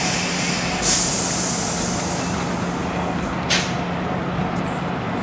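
Stretched 2022 Peterbilt 389's diesel engine running at low speed while the rig maneuvers. A sudden loud hiss of air from the air brakes comes about a second in and fades over half a second, and a shorter, sharp air hiss follows about three and a half seconds in.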